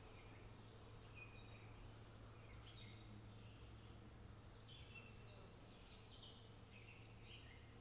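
Near silence: a faint low hum with scattered faint bird chirps.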